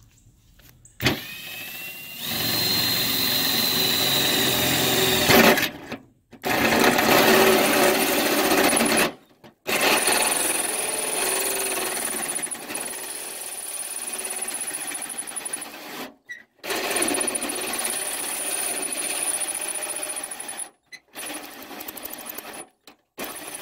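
Cordless drill driving a hole saw through the sheet-metal fender of a Jeep Cherokee XJ, whining up to speed at the start and then cutting in several runs broken by brief stops. The saw is smaller than the marked circle, so a ring of holes is being cut around it to open out the snorkel hole.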